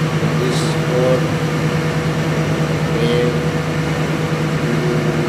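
A 500 kVA diesel generator set running steadily under load, a loud even drone.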